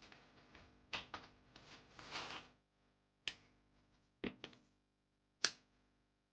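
Unboxing handling noises: a series of sharp clicks and knocks as packaging and parts are picked up and set down, with a brief rustle of packaging in the middle.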